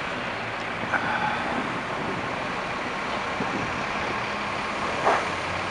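Steady street traffic: cars and a tractor-trailer truck passing with engine and tyre noise. A brief higher tone comes about a second in, and a short louder bump near the end.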